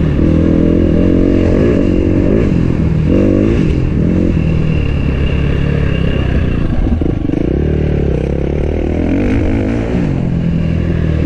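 Enduro dirt bike engine being ridden hard, its pitch climbing and dropping back several times as the throttle is opened and closed, with some clatter from the bike.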